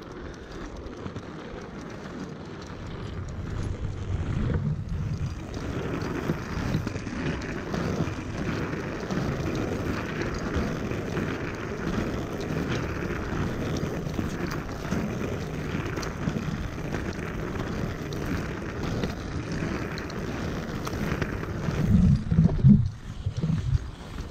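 Wind buffeting the microphone over the steady rumble of inline skate wheels rolling on pavement, growing louder about four seconds in, with a few heavier low thumps near the end.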